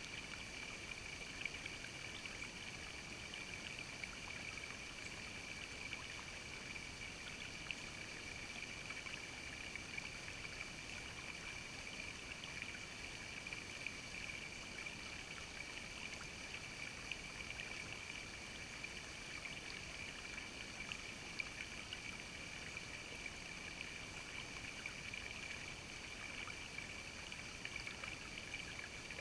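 Shallow creek water running over rocks: a steady babble with many tiny splashes.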